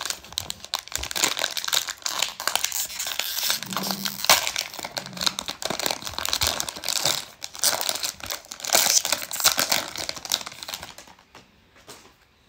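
Foil wrapper of a baseball card pack being torn open and crinkled by hand. The dense crinkling stops about eleven seconds in, once the cards are out.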